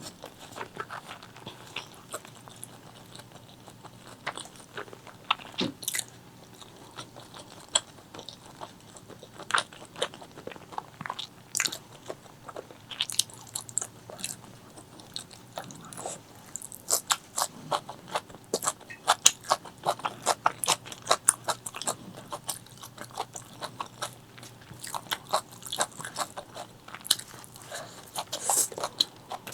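Close-miked chewing of spicy chicken liver, gizzard and rice: wet, crunchy clicks and mouth smacks at an uneven pace. The chewing is sparse at first and turns fast and dense a little past the halfway point.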